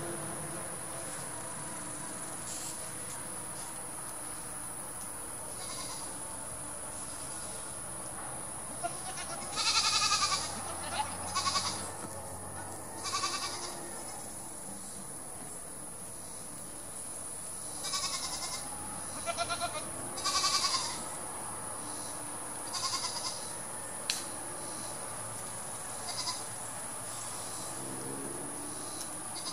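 Goats bleating in short high calls, a cluster about ten seconds in and another around eighteen to twenty-one seconds, with single calls later on. A steady high whine runs underneath.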